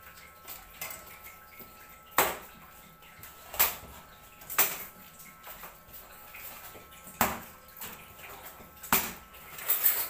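Plastic packing straps being cut and pulled off a cardboard refrigerator box: about six sharp snaps, a second or two apart, with small rustles in between.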